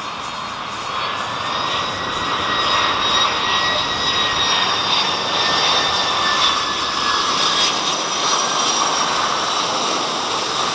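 Twin-engine jet airliner's engines running as it flies low on final approach and flares to land. The noise swells about a second in, with a high whine over the roar that falls slightly in pitch as the jet passes.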